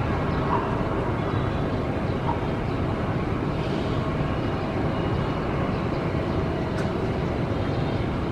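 Boeing 777-300ER's twin GE90-115B turbofans at takeoff thrust: a steady, deep jet roar as the airliner rotates and climbs away.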